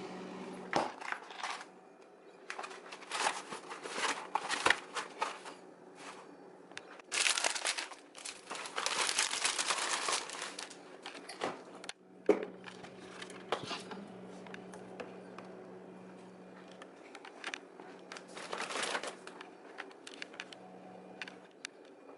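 Plastic food packaging rustling and crinkling, with knocks and clicks, as someone rummages through a side-by-side refrigerator-freezer; the densest crinkling comes about seven to ten seconds in, and a sharp knock follows about twelve seconds in. A faint steady low hum runs underneath.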